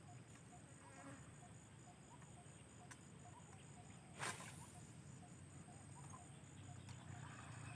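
Near-silent outdoor ambience with a low steady hum and faint, evenly spaced ticks, broken once about four seconds in by a short, loud rush of noise.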